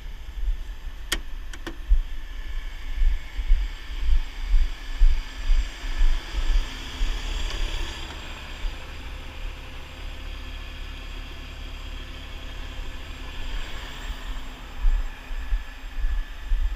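Heavy-duty wrecker's engine running under gusty wind rumble on the truck-mounted camera's microphone, with two sharp clicks a little over a second in.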